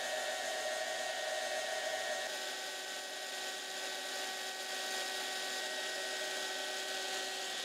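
Small handheld heat gun running steadily: a hiss of blown air with a steady motor whine. It is heating the old spine adhesive of a book signature to soften it.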